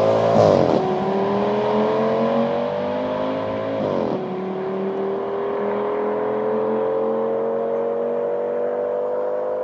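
Audi S6 accelerating away down the road, its engine note climbing through the gears. Its pitch drops sharply at an upshift about a second in and again about four seconds in, then rises steadily again.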